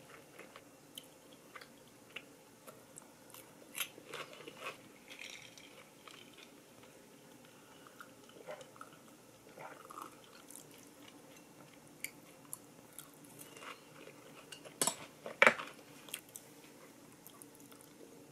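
Quiet close-up eating sounds: chewing and crunching of fried cream croquettes with curry rice, with scattered light clicks of a spoon against a ceramic bowl. Two sharp clicks near the end are the loudest.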